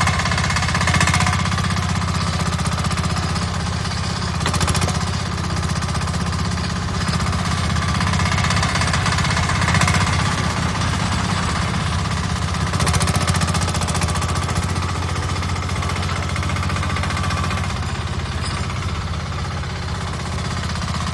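Koop single-cylinder air-cooled diesel engine of a 1-ton mini excavator running steadily under working load, a loud, rapid chugging that goes on without a break while the machine digs and moves.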